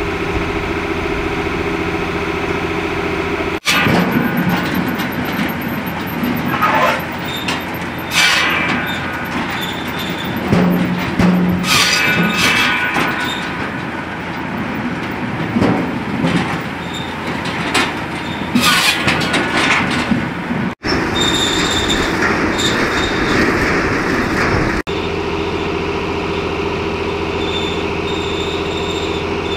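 Someca 1000 tractor engine running steadily at the start and end, driving a firewood saw bench. In between, the circular saw cuts logs, its blade whining high as it bites into the wood several times over the steady running of the engine and saw.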